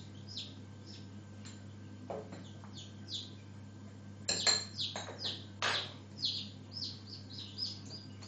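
Newly hatched chicks peeping over and over, short high calls that slide downward, one or two a second. A few clinks and knocks of a spoon and dishes come about two, four and five and a half seconds in.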